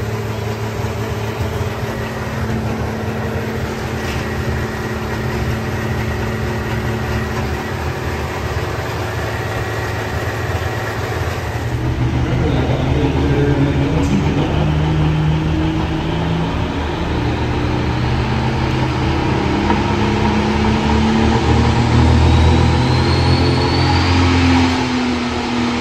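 Limited Pro Stock pulling tractor's diesel engine, first idling steadily, then running hard under load and getting louder. A rising whistle comes in near the end.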